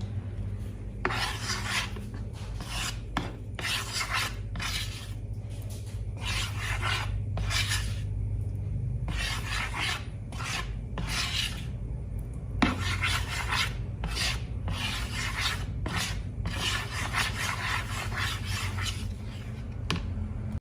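Repeated rubbing or rasping strokes, each about half a second to a second long, over a steady low hum.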